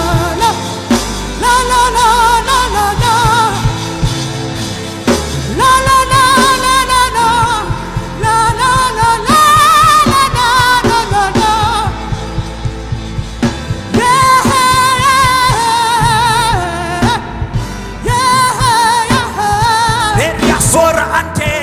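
Gospel worship song: a voice sings long held notes with strong vibrato over full band accompaniment.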